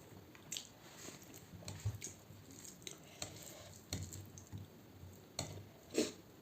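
Eating sounds of rice and fish curry: scattered short wet squishes and smacks, the sharpest about six seconds in.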